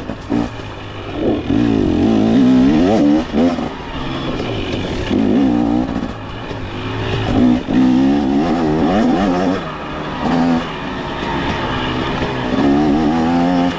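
Single-cylinder off-road engine revving up and down again and again, the throttle rolled on and off every second or two with brief drops in between.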